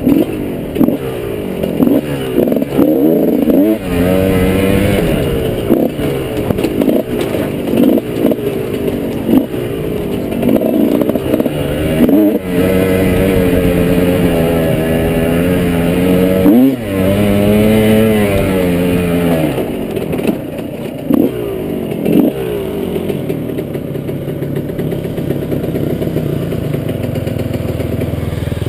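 Dirt bike engine being ridden on the trail, its pitch rising and falling as the throttle is worked, with a few sharp drops where the throttle is chopped and then opened again.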